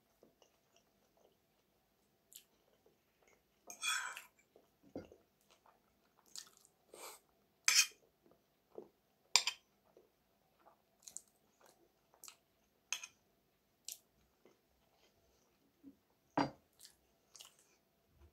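Close-up eating sounds: chewing with wet mouth clicks and smacks, and a fork clinking against a metal pan. A single sharper knock comes near the end.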